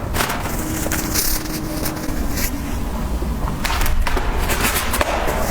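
Close-miked eating sounds: chewing with scattered clicks and crackles over a steady low rumble.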